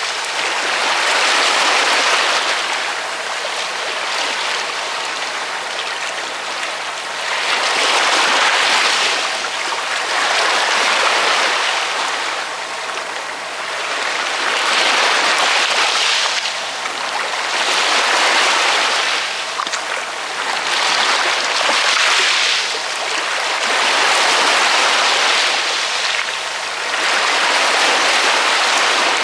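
Ocean waves breaking and washing in, a hiss of surf that swells and falls away again every few seconds, about seven times, with little deep rumble.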